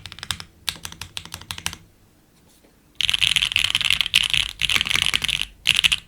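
Typing on an OG F1-8X mechanical keyboard with broken-in, lubed Gateron Oil King linear switches, a full FR4 plate and GMK keycaps. Separate keystrokes come first, then a short pause. About halfway in comes a louder, dense flurry of very rapid keystrokes lasting a couple of seconds, then a few more strokes.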